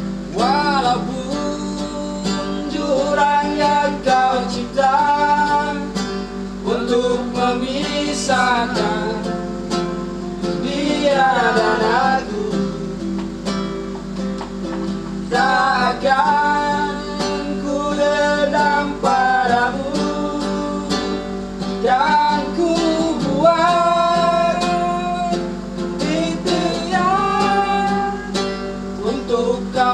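Acoustic guitar strummed as an accompaniment, with men singing along in sung phrases broken by short pauses.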